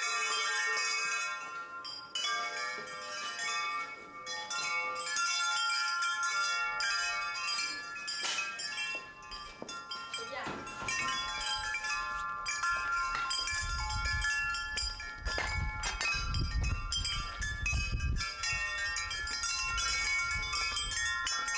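Chimes ringing, many overlapping tones sounding together, with a few sharp knocks. From about two-thirds of the way through, a low rumble of wind on the microphone comes in under them.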